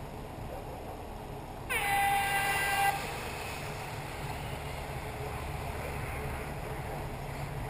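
An electronic race-start horn sounds one loud tone of a little over a second, coming in about two seconds in, over a steady low hum.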